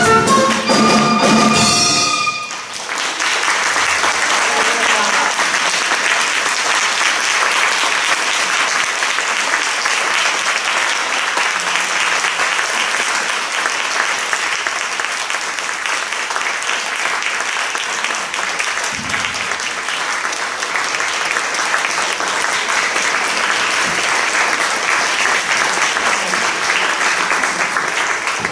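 The final chord of a flute, piano and drum-kit ensemble cuts off about two seconds in. A concert-hall audience then applauds steadily for the rest of the time.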